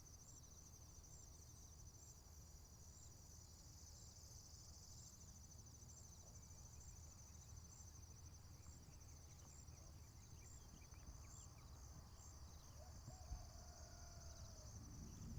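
Faint insects trilling steadily, a continuous high-pitched chirring with a regular pulse, over a low background rumble.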